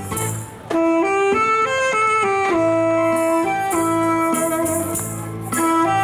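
Saxophone playing a slow melody in long held notes. It comes in about a second in, over a backing track with a steady drum beat and cymbals.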